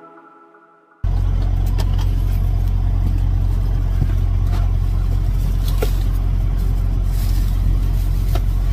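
Background music fading out, then about a second in a steady low rumble of the semi truck's diesel engine idling, heard inside the cab. A plastic bag rustles, with a few sharp clicks and knocks as someone settles into the seat.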